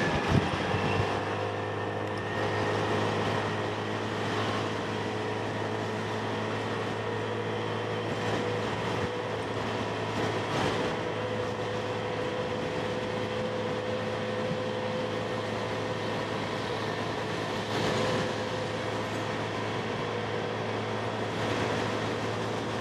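Motorcycle riding at a steady speed, heard through a helmet-mounted mic: an even engine hum with wind rushing over the microphone.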